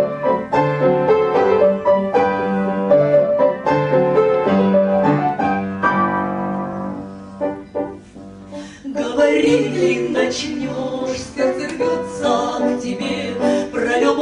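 Instrumental break of a slow song, the accompaniment playing sustained, decaying notes on its own; it thins out briefly around the middle, and a woman's singing voice comes back in over it in the last few seconds.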